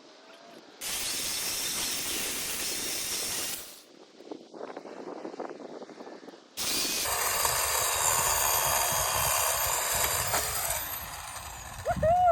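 Small Black & Decker electric chainsaw cutting through a tree branch in two runs, the second a steady high whine that winds down after about four seconds. A brief loud sound comes near the end.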